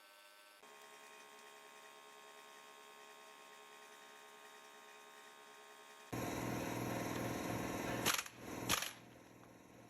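Impact wrench starting about six seconds in with a loud steady motor whine, then hammering in two short sharp bursts about half a second apart before stopping, driving an Allen key in the Jacobs chuck of a Milwaukee Super Hawg drill to break the long-stuck chuck loose. A faint hum before and after.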